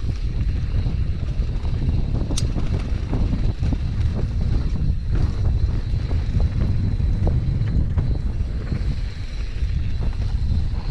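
Wind buffeting the microphone over the rumble of a mountain bike riding singletrack, with scattered rattles and knocks from the bike and one sharp click about two seconds in.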